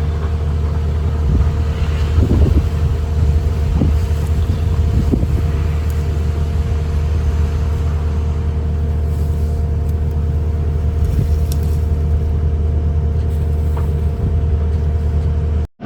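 Engine of a loader working dirt, running at a steady speed as a low, even hum, with a few brief clanks in the first five seconds. The sound cuts off abruptly just before the end.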